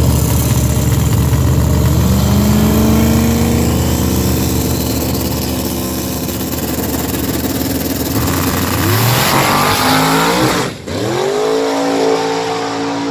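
Drag-racing car engines at the starting line: a heavy rumble, then held at steady high revs while staging. About 8 seconds in, the revs climb sharply as the cars launch, break off suddenly for a moment near 11 seconds as in a gear change, then climb again and hold as they pull away down the track.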